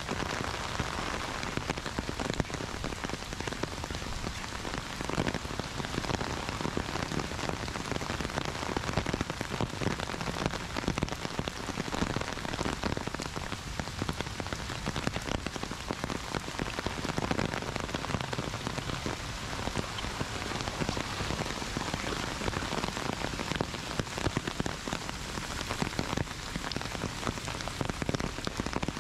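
Heavy rain falling steadily, with a dense spatter of close drop hits.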